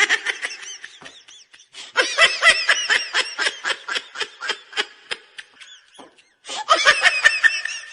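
High-pitched laughter in rapid ha-ha pulses, coming in three bouts with short pauses between them, likely a laughter sound effect.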